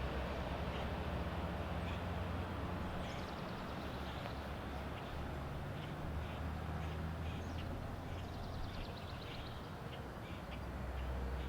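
Birds chirping and chattering in short, rapid runs over a steady low rumble of outdoor background noise.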